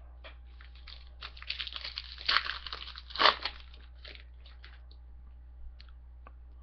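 A Panini basketball card pack's wrapper crinkling and being torn open. There is a dense run of crackles through the middle, with the sharpest one about three seconds in, then a few faint clicks.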